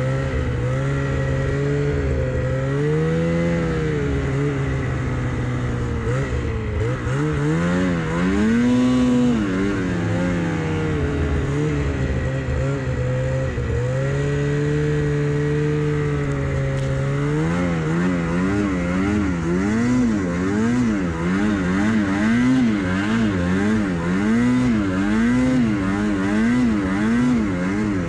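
Snowmobile engine running under way. Its pitch holds steady for stretches, swells up and back down about a third of the way in, then rises and falls about once a second through the last third as the throttle is worked.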